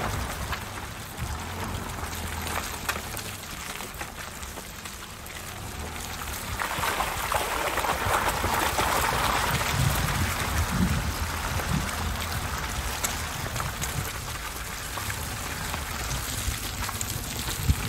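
Lexus ES sedan on snow chains driving slowly over a wet, muddy dirt track, its wheels splashing and churning through mud and puddles over a low engine rumble. The wet churning swells louder in the middle and then eases.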